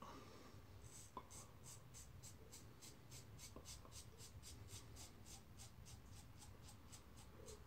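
Razor scraping through lathered stubble in short, quick strokes, about three or four a second, faint.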